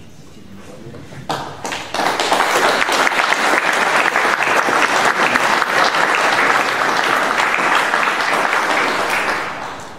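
Audience applauding. A few scattered claps come about a second in, then steady applause from about two seconds in, dying away near the end.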